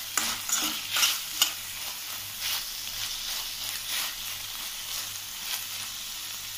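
Diced vegetables frying in ghee in a metal pan: a steady sizzle, with a spoon stirring and scraping against the pan in repeated strokes that are loudest in the first second or so.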